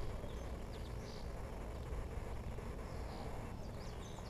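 Open-field ambience: small birds giving short, high chirps, a few early on and several in quick succession near the end, over a low steady rumble.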